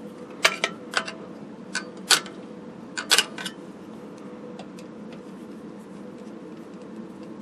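Metal hand tool clicking and tapping against a metal TV chassis while a stubborn grommet is worked into its mounting hole. There are about eight sharp clicks in the first three and a half seconds, then only faint ticks over a faint steady hum.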